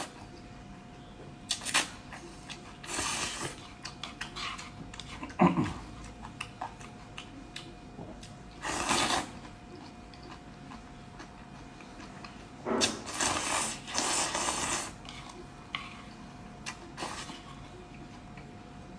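Person slurping noodles out of a bowl of broth in several drawn-out slurps, with short clicks and mouth smacks between them.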